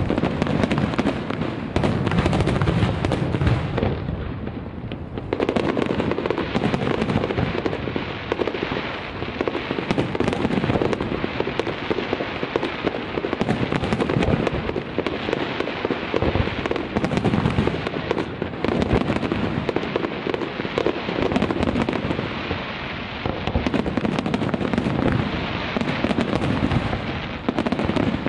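Fireworks display: a dense, continuous barrage of aerial shell bursts and crackle, with a brief lull about four seconds in.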